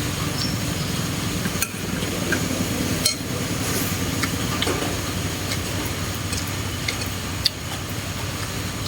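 Eating utensils clinking and tapping against a dish during a meal, with a few sharper knocks, over a steady low hum.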